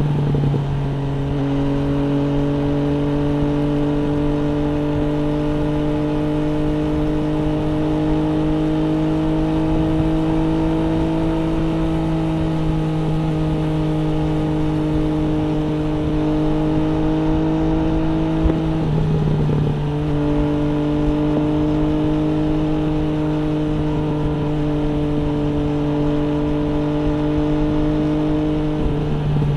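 MV Agusta Brutale 800 RR's three-cylinder engine running at a steady road speed through an FF by Fresco aftermarket exhaust, its note climbing slowly. The note breaks briefly and picks up slightly lower about a second in, about two-thirds of the way through and again near the end, as the rider changes gear.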